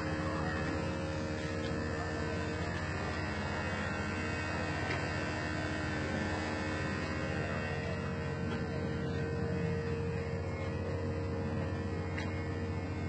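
A steady low hum with a fainter, higher held tone above it.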